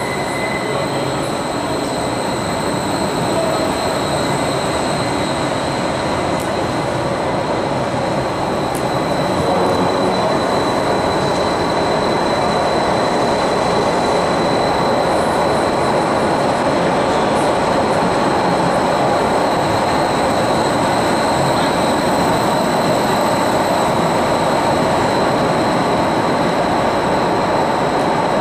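Stadler Flirt III electric multiple unit pulling out of an underground station and running past: a steady rumble of wheels and running gear, louder from about ten seconds in, with a thin steady high whine over it.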